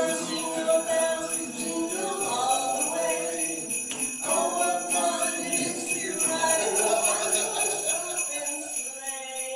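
Christmas music with jingle bells ringing throughout, thinning out near the end.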